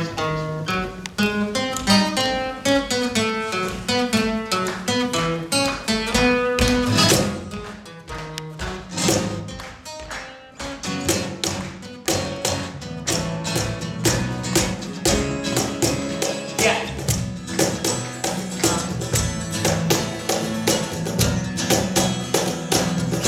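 Live band playing an instrumental opening: a run of quick plucked notes, dipping quieter about eight seconds in, then a fuller, steady beat from about eleven seconds.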